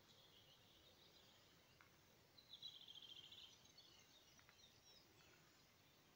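Near silence with faint, high bird calls; a short, rapid trill of repeated notes about two and a half seconds in is the loudest part.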